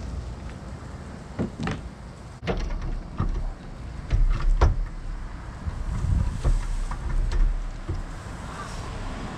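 Scattered clicks and knocks of hand-tool work on a car, with a few bursts of low rumble.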